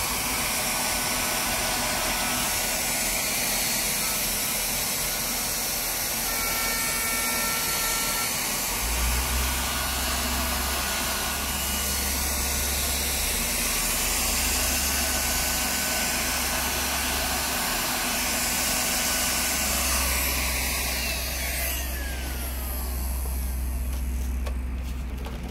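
Leister Triac ST hot air gun running after its stator repair, its blower making a steady rushing hiss as it blows hot air onto plastic. From about nine seconds in a low rumble joins. Near the end the high hiss thins out and a falling tone is heard.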